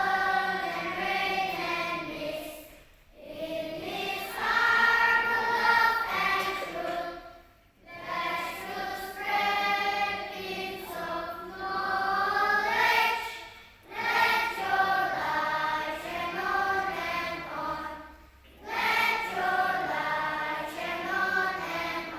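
A group of voices singing together in held phrases, with short pauses for breath every four to six seconds.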